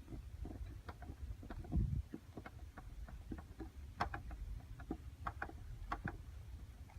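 Irregular clicks and light taps over a low rumble: handling and rubbing noise from a polishing pad worked over a plastic headlight lens.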